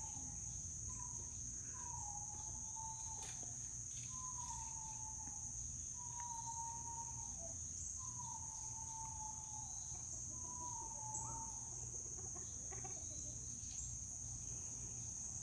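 Steady high-pitched insect chorus, with a series of faint, slightly falling whistled calls repeating every second or two over the first ten seconds.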